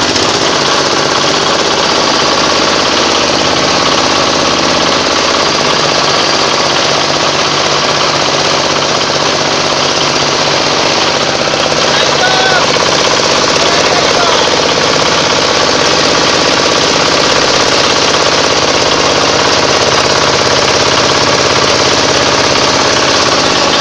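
Organic compost grinder machine running steadily and loudly, a continuous mechanical clatter over a low drive hum.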